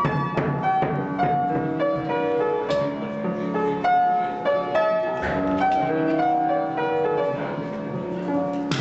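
Piano music with a few sharp knocks over it, near three seconds in, about five seconds in and again at the very end: hammer blows cracking nuts on a carpeted floor.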